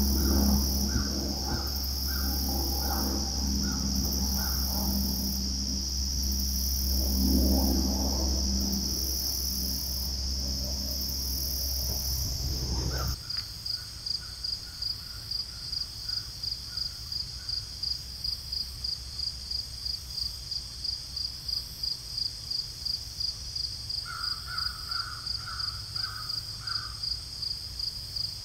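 Outdoor insect chorus: a steady high insect buzz over a low rumble, which changes abruptly about 13 seconds in to insect chirping pulsing evenly about three times a second. Short runs of lower, repeated bird-like calls come and go over it.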